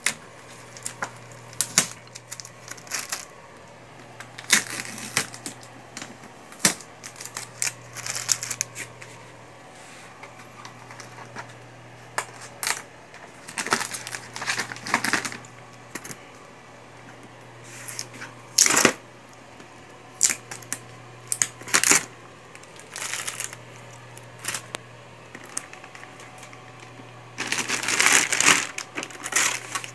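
Clicks, knocks and rustling of a boxed inkjet printer being handled and unwrapped from its plastic bag, with a longer spell of plastic crinkling near the end. A low steady hum runs underneath.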